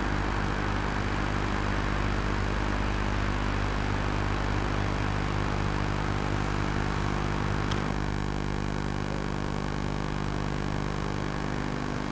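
Diesel engines of heavy earthmoving machines, a large hydraulic excavator among them, running steadily with a low, even hum. A faint short tick comes about eight seconds in.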